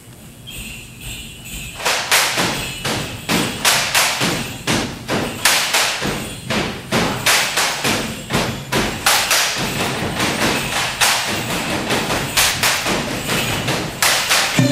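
Bamboo poles of a Philippine Singkil dance clapped together and struck on the stage floor, a steady rhythm of sharp clacks about two to three a second, starting about two seconds in.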